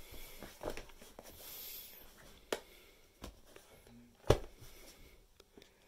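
Light knocks, taps and rustles of cardboard packaging being handled, with one sharper knock about four seconds in.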